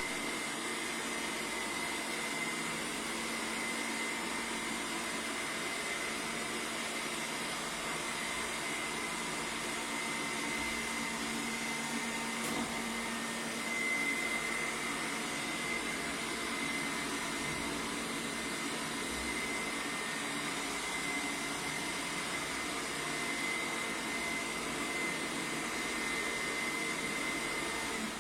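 Bagotte 3-in-1 robot vacuum running steadily: a continuous whirring motor noise with a steady high whine over a lower hum.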